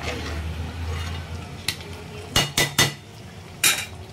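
Metal spoon stirring thick chicken curry in a metal cooking pot, then clanking against the pot: three sharp knocks in quick succession about two and a half seconds in, and a short scrape near the end.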